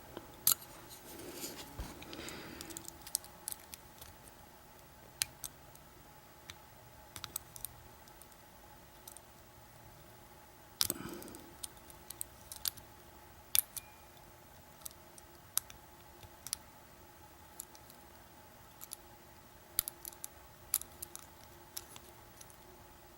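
Small metallic clicks and taps, sparse and irregular, from a lock pick and tension tool working in an American 1100 padlock, with a brief rustle near the start.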